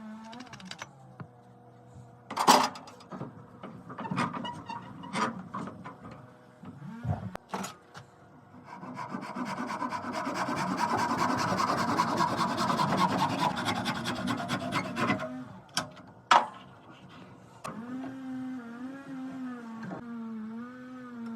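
Rasping on wood in quick, continuous strokes for about seven seconds in the middle, with a few separate sharp knocks before and after.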